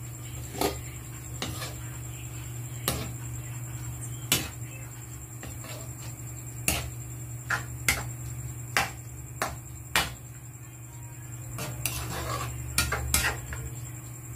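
Metal spatula knocking and scraping against an aluminium wok while stirring banana heart in coconut milk: about a dozen sharp, irregular clanks, bunched between about six and ten seconds in and again near the end.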